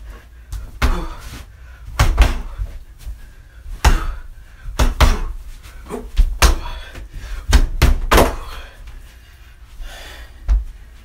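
About a dozen heavy thuds and knocks at irregular intervals, some coming in quick pairs.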